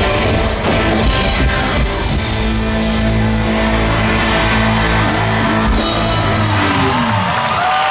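Live amplified rock music with electric guitar, played loud through a stage PA. The bass drops out a little after halfway and a final held chord dies away near the end, as the crowd starts to shriek.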